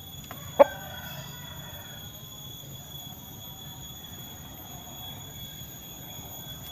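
Bangkok gamecock giving a single short cluck about half a second in, followed by a faint drawn-out call. After that there is only low, steady yard background with a faint constant high tone.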